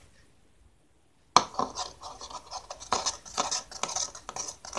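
About a second of near silence, then a metal spoon knocks against the bowl and stirs and scrapes round it with quick, irregular clinks. It is mixing glue and borax solution with a spoonful of baking powder into slime.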